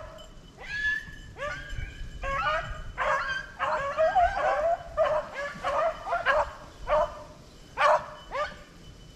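A pack of beagles baying on a rabbit's track. Single bawls at first, then several dogs' voices overlapping through the middle, then spaced single calls again near the end.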